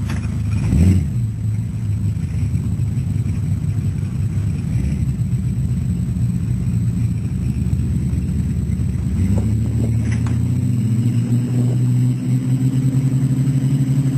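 A 4x4 truck engine running steadily, its pitch rising and held higher from about nine seconds in, with a single thump about a second in.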